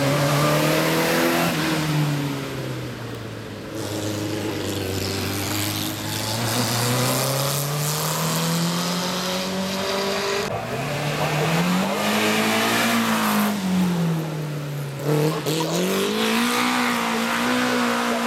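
Engines of pre-war vintage racing cars revving hard as several cars pass one after another. The pitch climbs steadily, drops and climbs again with the gear changes.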